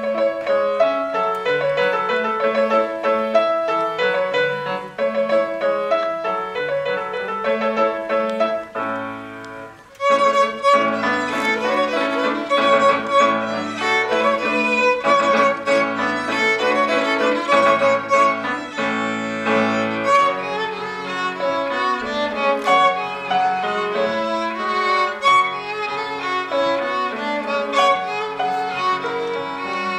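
Violin and piano duo playing a sonatina: a bowed violin melody over piano accompaniment. The music starts suddenly, thins and dips briefly just before ten seconds in, then comes back louder.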